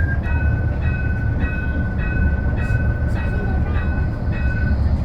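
Modern tram's door warning signal: a high electronic beep repeated about eight times, just under two a second, stopping near the end, over the steady low rumble of the tram car.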